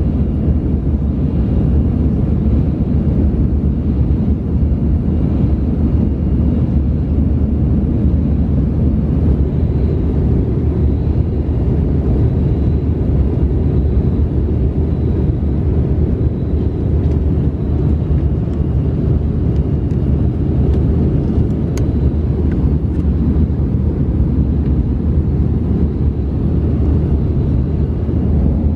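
Airbus A319 passenger-cabin noise in flight: a steady, deep rumble of engines and airflow that does not change.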